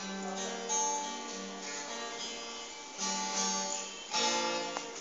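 Acoustic guitar music: chords strummed, their notes ringing on, with fresh chords struck about three and four seconds in.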